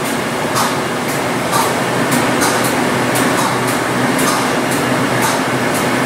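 Steady industrial background of a running electroplating shop: a continuous rush of air with a low hum from fans and blowers, with a few faint light ticks.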